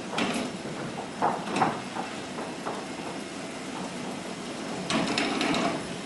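Scattered knocks and scuffs of actors moving about on a wooden stage, over the steady hiss of a hall, with a few sharper knocks early on and a cluster near the end.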